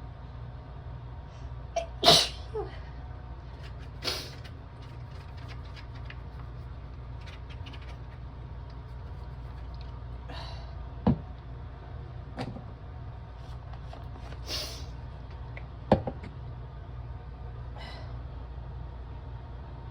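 A person sneezing from the chill after a shower: the loudest sneeze about two seconds in, with further sneezes later. A couple of sharp knocks fall between them, over a steady low hum.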